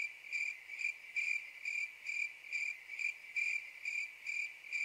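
Cricket-chirping sound effect: a high, even chirp pulsing about twice a second, starting abruptly out of dead silence. It is the stock comedy cue for an awkward silence.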